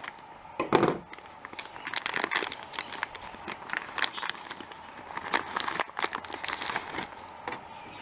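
Clear plastic zip bag crinkling and rustling in irregular bursts as hands open it and pull out a switch with a coiled cable, with a louder crackle just under a second in.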